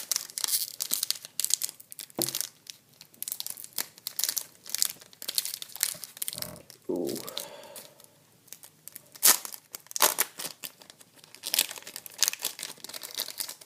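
Foil booster-pack wrapper being torn open and crinkled by hand: irregular crackling and tearing throughout, with a short "ooh" about seven seconds in.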